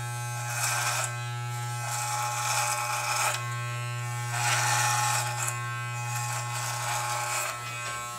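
Corded electric hair clippers with a No. 2 guard comb running with a steady low hum, cutting through a thick beard, with a rasping hiss on each of about four passes.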